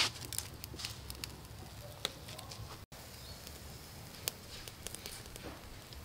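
Charcoal fire crackling under salt-crusted fish on a wire grill, with irregular sharp pops, the loudest right at the start.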